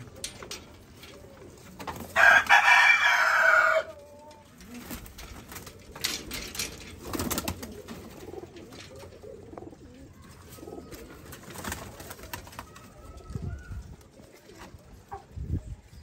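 Domestic pigeons cooing in a wire-mesh loft, with scattered clicks and knocks. About two seconds in there is a loud rasping noise lasting about a second and a half.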